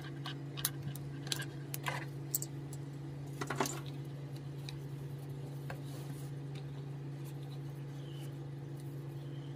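Small plastic clicks and taps as a laptop charger and its plug adapter are handled, then a brief scrape about three and a half seconds in. A steady low hum runs underneath.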